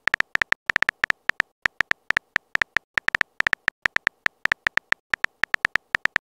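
Rapid, uneven keyboard-tap clicks of a texting app's typing sound effect, several a second, as a text message is typed out letter by letter.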